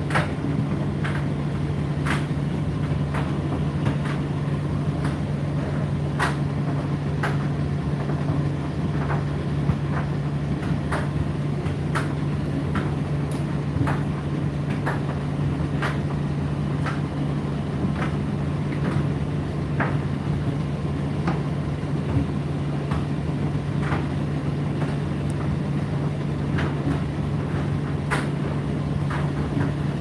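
Indesit IDC8T3 condenser tumble dryer running mid-cycle: a steady low hum from the motor and fan, with light clicks and knocks at irregular intervals, about one or two a second.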